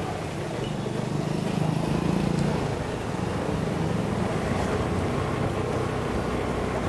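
Honda Dio scooter's single-cylinder engine running on the move, with road noise; the engine note swells and rises as it picks up speed about a second and a half in, then holds steady.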